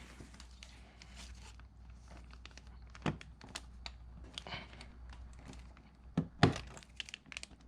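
Plastic fog light trim being pried with pick tools: scattered light clicks and scrapes, with a few sharper knocks, the loudest about six seconds in.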